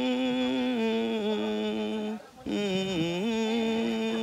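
A person humming a slow tune in long held notes, in two phrases with a short break a little after two seconds in; each phrase opens with a wavering slide and then settles on steady notes that step down in pitch.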